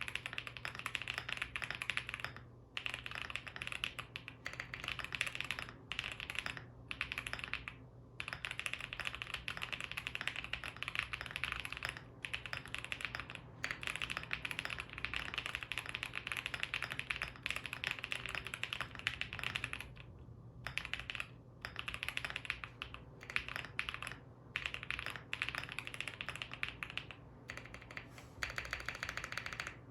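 Typing on a Jelly Epoch mechanical keyboard with lubed Gazzew Boba U4T tactile switches: fast, continuous keystrokes with a few brief pauses.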